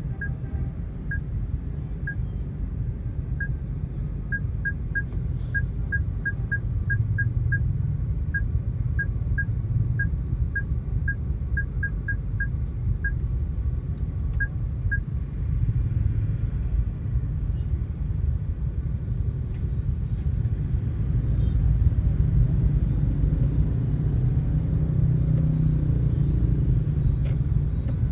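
Dense motorbike and scooter traffic: many small engines idling and running in a steady low rumble, growing a little louder past the middle. Through the first half a run of short, high-pitched beeps sounds at an uneven pace, about two a second.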